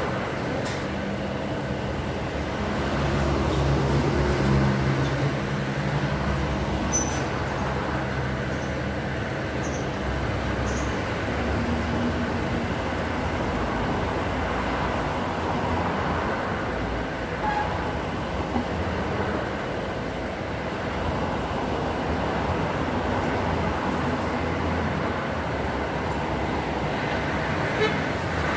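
Steady rumble of road traffic passing on the street, with a heavier vehicle's engine droning by from about three to ten seconds in.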